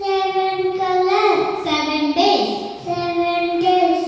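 A young child singing a song into a microphone, holding each note for about half a second to a second and stepping up and down in pitch.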